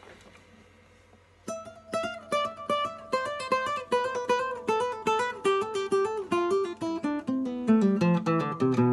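Acoustic guitar playing a picked melody of single plucked notes, starting about a second and a half in after a quiet moment.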